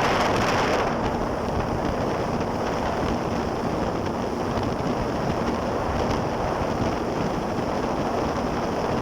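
Wind buffeting the microphone on a moving jet ski, over rushing water and a faint steady engine hum.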